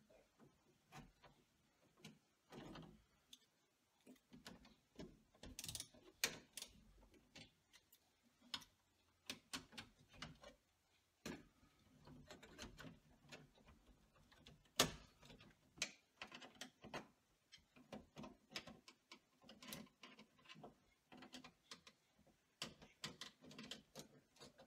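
Faint, scattered clicks and light metallic taps of a screwdriver and wires being worked inside a circuit breaker panel, with one sharper knock about fifteen seconds in.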